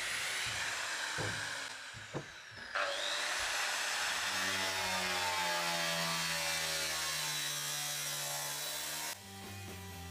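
Angle grinder cutting through the sheet-steel roof of a BMW E46 sedan: a loud, steady grinding hiss with a high whine. It eases off briefly about two seconds in, cuts again, and stops suddenly near the end.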